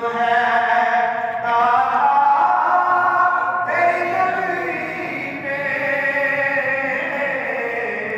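A man chanting an Islamic devotional recitation into a handheld microphone, in a melody of long held notes that step to a new pitch every second or two.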